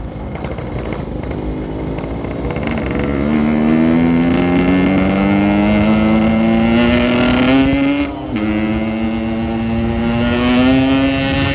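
Yamaha RX-King's 135 cc two-stroke single-cylinder engine pulling under acceleration, its note climbing steadily; about eight seconds in it dips briefly for an upshift, then climbs again.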